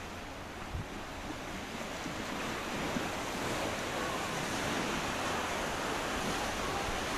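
Sea surf washing against the rocks below, a steady rushing that grows a little louder, mixed with wind.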